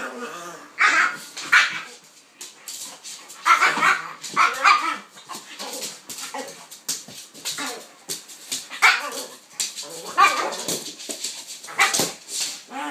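Play barking from a pitbull and a King Charles spaniel romping together, in short irregular bursts with pauses between.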